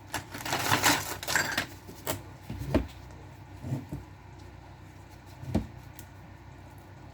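Workshop handling noise: a second or so of scraping and rustling, then a handful of separate knocks and clanks of metal parts or tools being picked up and put down.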